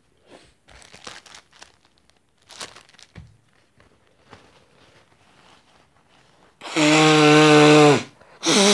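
Tissue paper crinkling and rustling for several seconds, then a loud honking nose blow into the tissue lasting over a second, its pitch sliding down. A second honk starts just at the end.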